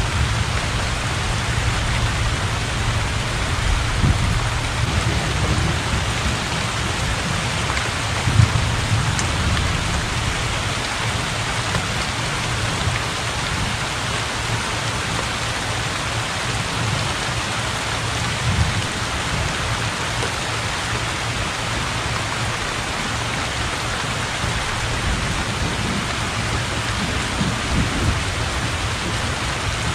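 Heavy rain falling steadily onto flooded fields and a thatched roof, a constant hiss, with low thunder rumbling underneath that swells a few times.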